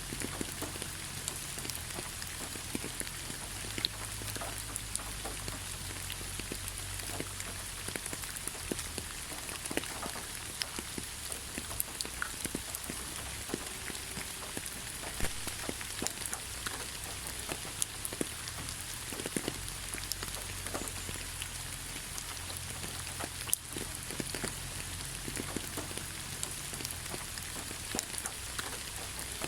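Steady rain falling on leaves, a continuous patter with many scattered individual drop taps.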